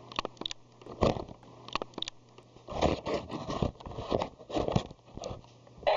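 Irregular clicks, knocks and scraping from a plastic circuit-bent toy keyboard being handled as it is switched on.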